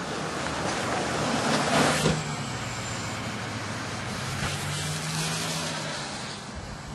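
Street traffic: a vehicle passes close by, its noise swelling to a peak about two seconds in, over a steady low engine hum.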